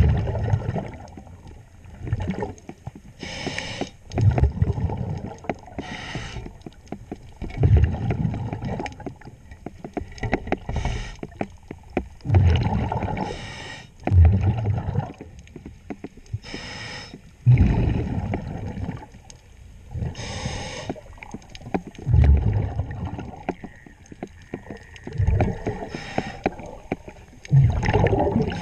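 A diver breathing underwater through a regulator: a short hissing inhale, then a louder low gurgle of exhaled bubbles, repeating about every four seconds.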